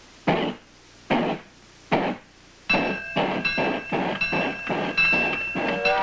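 Steam-locomotive sound effect: three slow, separate chuffs, then from about halfway the chuffing speeds up into a quick steady rhythm, with several steady high tones held over it.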